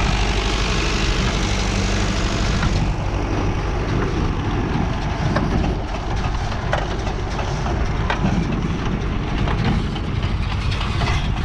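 Tractor engine running steadily while working a New Holland 68 small square baler, with scattered sharp knocks and clatter over the drone.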